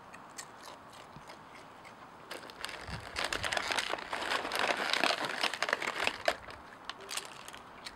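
Raccoon chewing potato chips: a dense, crackling crunch that starts about two and a half seconds in and fades out near the end.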